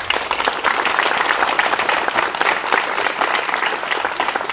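A small crowd applauding, a dense run of hand claps.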